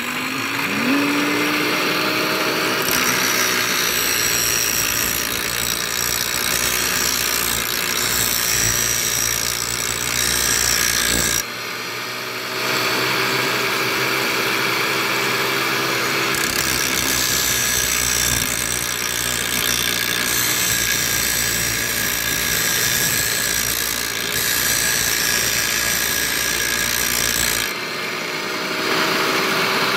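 Electric angle grinder switched on and spinning up, then running loud and steady while a steel forage-shredder knife is ground against its disc. The grinding removes the blade's shoulder to give it a thin, hollow-ground edge. The sound changes several times as the work goes on, with a brief dip partway through.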